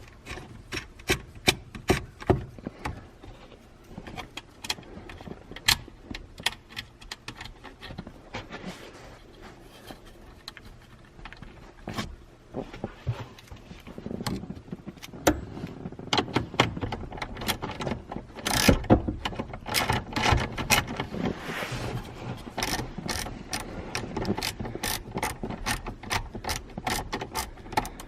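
Socket ratchet clicking in short runs, with small metal clinks and knocks, as the mounting nuts of a neutral safety switch are threaded on and run down. The clicking grows busier and louder about halfway through.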